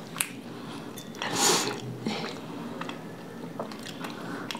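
Quiet chewing and mouth sounds with small scattered clicks, and a short breathy hiss about a second and a half in.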